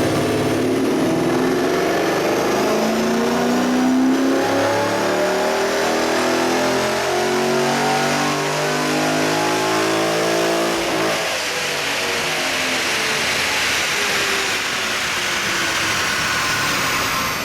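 Cammed naturally aspirated 6.2-litre V8 revving up under load in a full-throttle dyno pull, its pitch climbing steadily for about eleven seconds. Then the throttle closes and the revs fall away.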